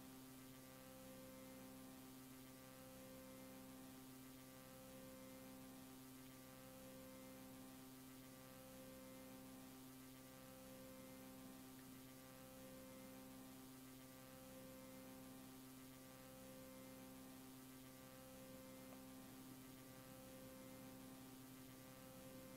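Near silence with a faint steady hum made of several low tones, one of which pulses on and off roughly every second and a half.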